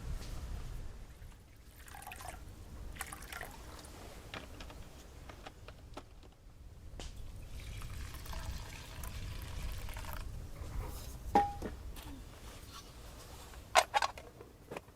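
Liquid being poured, with scattered light clicks and two sharp knocks near the end.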